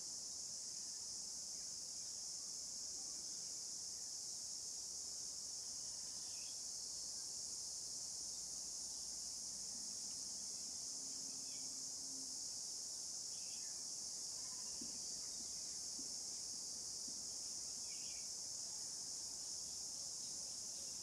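Steady high-pitched drone of an insect chorus, with a few faint chirps and a brief faint low hum about ten seconds in.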